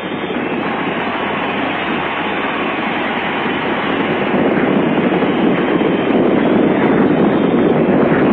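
Steady rushing, rumbling noise of a vehicle in motion, which builds over the first few seconds and then holds level.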